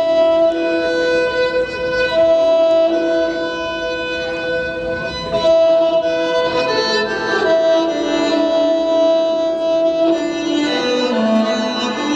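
Earth Harp, its very long strings stroked along their length by hand in rosined gloves, sounding long sustained notes like a bowed violin. The notes change every second or two, with several pitches overlapping.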